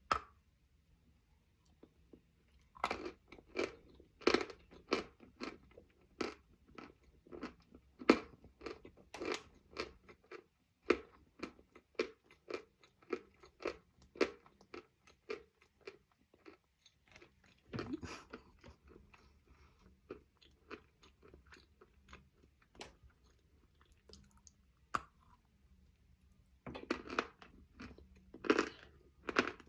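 Lumps of Khrapovsky chalk being bitten and chewed close to the microphone: crisp, dry crunches about one to two a second, with a few short pauses and a run of louder bites near the end.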